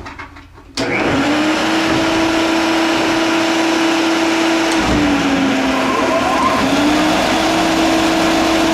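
Belt sander switched on about a second in and running steadily, sanding the edge of a wooden boomerang. Its motor hum sags briefly past the middle, then comes back up.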